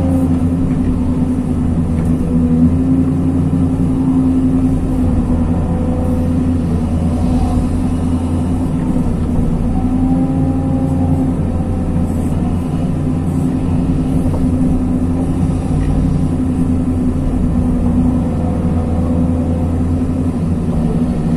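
Hyundai R220 excavator running steadily, its diesel engine droning under working load, with a faint higher whine that comes and goes as the boom and tilting bucket move.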